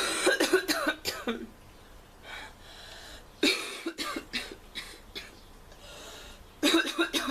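A girl coughing with a hoarse, almost croupy sound from a cold-induced sore throat. The coughs come in three bouts of several quick coughs each, at the start, about halfway and near the end, with quieter breathing between.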